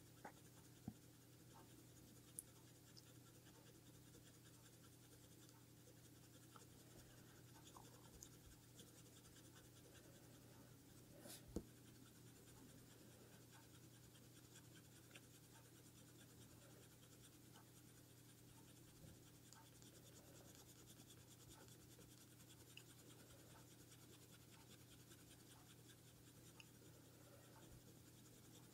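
Faint scratching of a coloured pencil stroking over hot-press paper as a drawing is blended, over a low steady hum, with one sharper tap about eleven seconds in.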